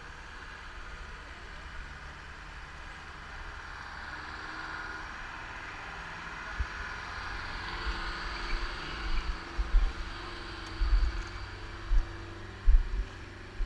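A vehicle engine running steadily, with a low hum that grows a little stronger after about six seconds. Several heavy low thumps come from about eight seconds in.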